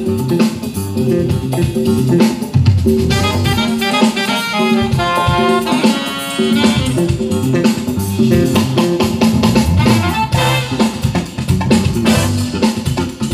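Live jazz band playing: a keyboard with a drum kit keeping time, the notes moving in quick runs.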